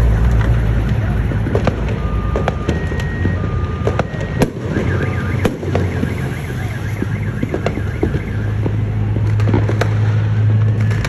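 Fireworks and firecrackers going off all around in scattered sharp cracks and bangs, while car alarms set off by them sound, beeping in two alternating tones and warbling. A loud low drone runs underneath, strongest near the end.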